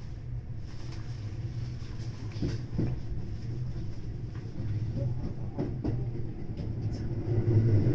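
JR West 521 series electric train heard from the driver's cab, running and picking up speed after leaving a station, with a steady low motor hum and wheels clicking over rail joints and points.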